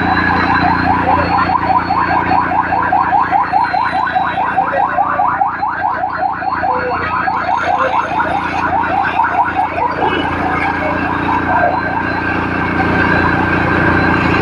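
An engine running steadily at a constant speed, with a rapid series of short rising chirps, about four a second, over it until about ten seconds in.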